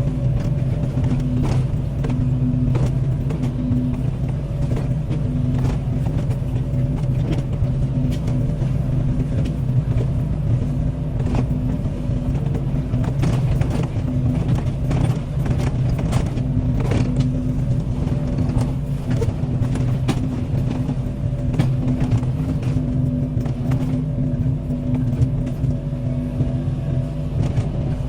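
Heavy excavator's diesel engine running steadily under load, with frequent sharp cracks and knocks scattered through it.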